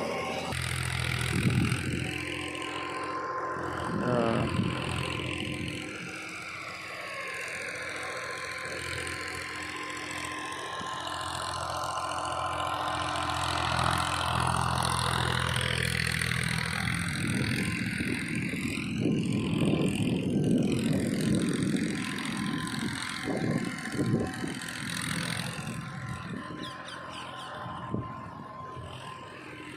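Massey Ferguson 241 tractor's diesel engine running steadily while driving the backhoe. From a little past halfway it turns rougher and more uneven, with irregular louder surges and knocks.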